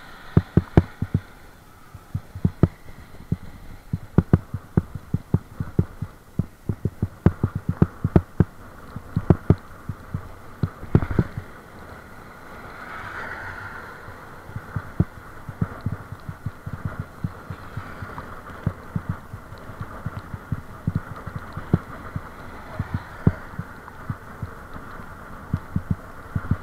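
Irregular muffled thumps knocking on a camera microphone carried along on a bicycle ride, at times several a second, with one heavier knock about eleven seconds in, over a steady background hiss.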